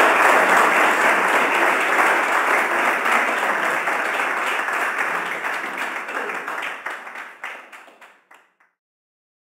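Audience applauding, thinning to a few scattered claps and dying away about eight and a half seconds in.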